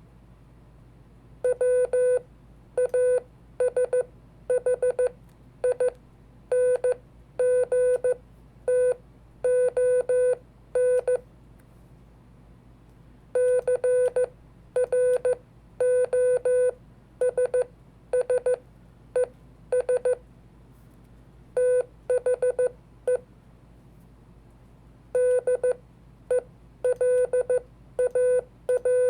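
Morse code (CW) sent as a steady beeping tone keyed on and off in dots and dashes. Four words with short pauses between them, the first the longest.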